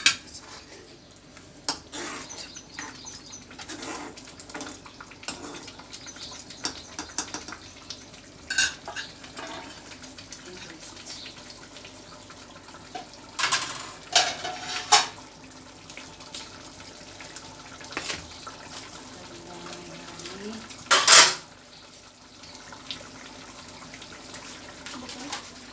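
Metal ladle and utensils clinking and knocking against a kadai of simmering curry and the steel stove top, in scattered light taps. There is a cluster of louder clanks about halfway through and one loudest clank about three-quarters of the way in.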